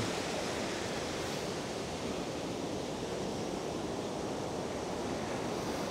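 Ocean surf breaking and washing up a sandy beach: a steady, even wash of waves.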